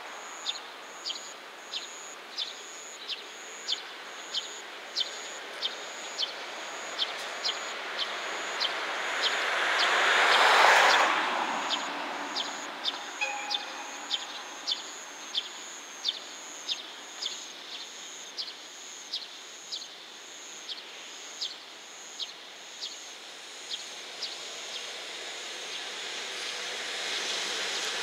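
A JR Freight EF210 electric locomotive and container train approaching slowly from a distance, its running noise growing near the end. Throughout, a high chirp repeats about three times every two seconds, and about ten seconds in a louder rushing sound swells and fades.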